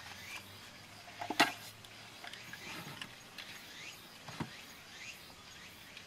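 Small songbird bathing in a shallow rock pool, with a sharp splash about a second and a half in and a softer knock near the end. Behind it a short, high, rising chirp repeats about every half second.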